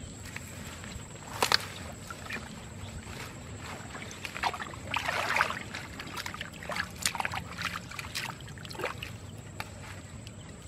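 Hands sloshing and patting in shallow muddy water, with irregular small splashes and a longer splash about five seconds in.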